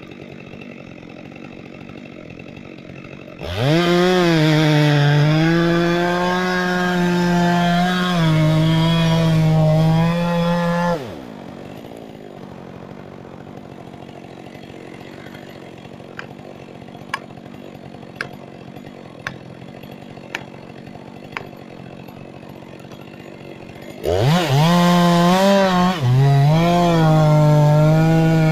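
Two-stroke chainsaw idling, then opened to full throttle for about seven seconds, its pitch sagging as the chain bites into wood, then dropping back to idle. A few sharp clicks sound during the idle, and near the end the saw is throttled up and cutting again.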